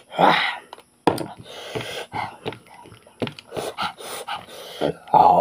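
Mukbang eating noises: a man chewing goat mutton with loud mouth smacking and huffing breaths through pursed lips, a run of short irregular sounds.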